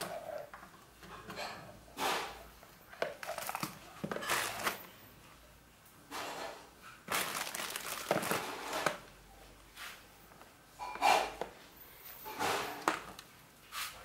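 Cables and RCA plugs being handled and pushed into the jacks on the back of a computer speaker subwoofer: a series of short, irregular rustles, scrapes and knocks.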